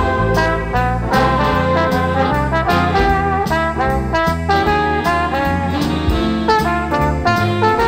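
Upbeat jazzy background music led by brass horns, playing a melody over a moving bass line with a steady beat.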